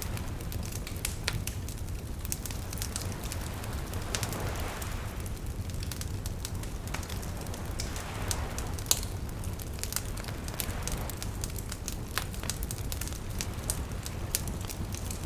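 Wood fire crackling and popping with many sharp snaps, over gentle waves lapping softly in slow swells every few seconds.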